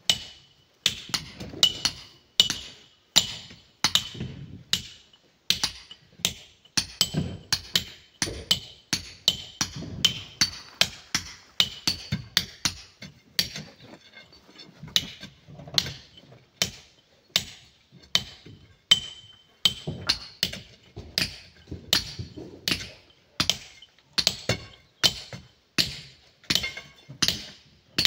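Hand hammer striking steel tools into a granite boulder to split it: repeated sharp metallic blows, about one to two a second, each with a short ringing tone.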